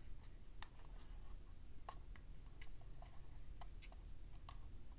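Faint, irregular light clicks and taps of fingers handling the white plastic shell of a power bank as it is turned over in the hands.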